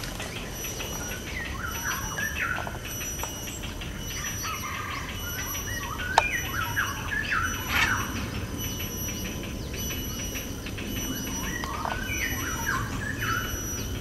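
Grey heron chicks calling from the nest in short, chattering bursts, in three bouts: hungry young begging to be fed. A single sharp tap comes about six seconds in.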